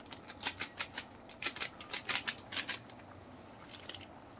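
Plastic spice packet being shaken and tapped over a pan: a quick run of crisp crinkling clicks for the first three seconds or so, then only faint background.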